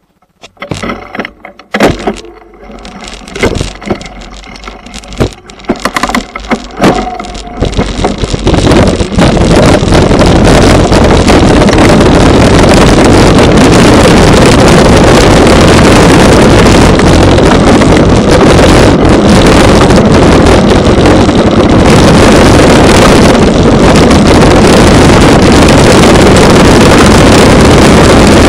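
Mountain bike riding over a rocky trail, heard through a bike-mounted camera's microphone: scattered knocks and clicks at first, then from about nine seconds in a loud, steady noise of wind and rattling.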